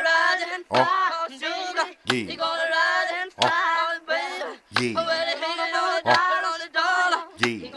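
Intro of a hip-hop beat: sung vocals over deep bass kicks that fall in pitch, about one every second and a half.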